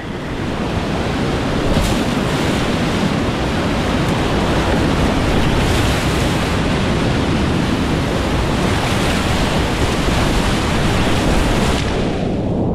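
Loud, steady rush of whitewater on a steep mountain creek. Near the end the higher hiss cuts out abruptly, leaving a duller, muffled rush.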